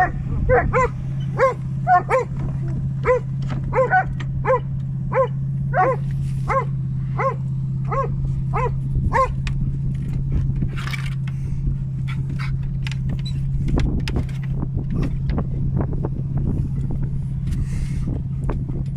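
A Black Russian Terrier and a Giant Schnauzer barking over and over, about two barks a second, stopping about nine seconds in. A steady low hum and wind noise run underneath.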